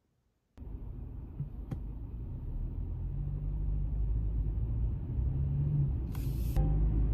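Inside a moving car's cabin: steady low road and engine rumble that starts suddenly about half a second in and slowly grows louder, with a faint low engine hum. A brief hiss about six seconds in.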